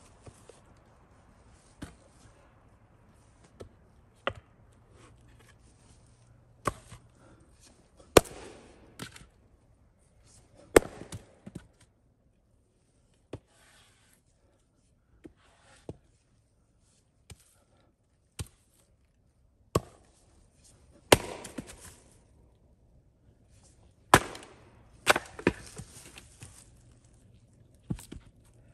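Splitting axe chopping rounds of wood on a chopping block: sharp single strikes every one to three seconds, with lighter knocks between them.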